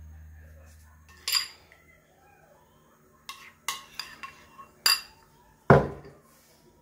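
Metal teaspoon clinking against a white ceramic bowl as cream is stirred: a string of sharp, uneven clinks, then one louder knock near the end.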